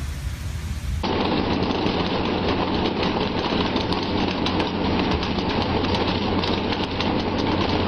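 Loud, rushing noise of water spray and sea around a pole-and-line tuna fishing boat, thick with rapid crackling and clicks. It starts abruptly about a second in.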